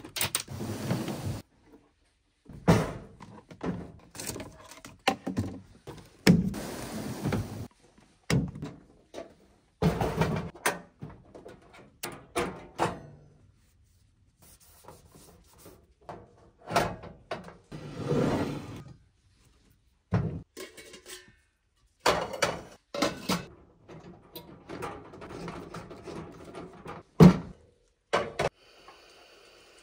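Irregular knocks, thunks and metal clatters as camp-kitchen gear is handled: a Coleman two-burner camp stove being set up, its metal grate put in place, and a steel pot set down. One sharp knock near the end is the loudest.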